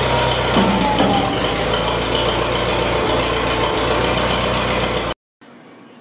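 Tractor engine running steadily while the front loader's hydraulic curl cylinder is fully retracted, with a short rising whine a little under a second in. The sound cuts off suddenly near the end.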